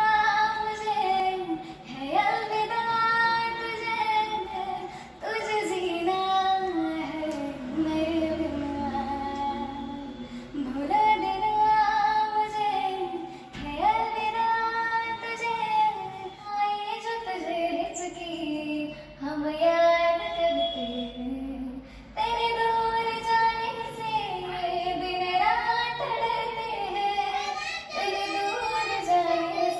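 A child singing a melody in a high voice, in phrases of long held notes that slide between pitches, with short pauses for breath between phrases.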